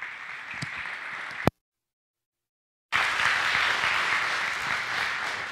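Congregation applauding. The sound drops out completely for about a second and a half partway through, then the applause comes back louder and slowly fades.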